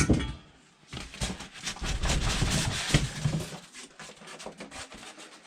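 Packaging being handled while unboxing a saw: a knock at the start, then irregular scraping and rustling with small clicks for about three seconds, dying down near the end.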